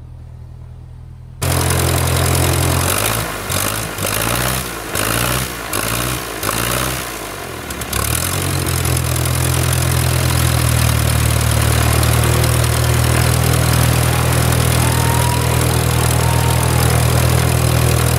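Cessna 172M's four-cylinder air-cooled Lycoming O-320 engine running with its propeller turning, its first run after ten years of storage. It is muffled for the first second or so, then loud and close, runs unevenly for several seconds, and settles into smooth, steady running from about eight seconds in.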